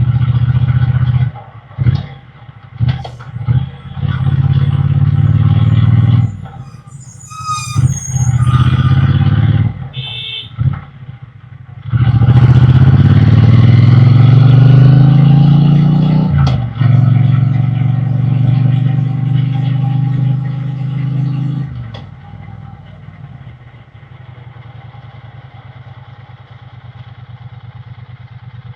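Triumph Bonneville T120's parallel-twin engine and exhaust, rolling on and off the throttle several times in the first half. It then revs up steadily through a gear, drops sharply at a shift, and settles to a much quieter low-speed run or idle for the last several seconds.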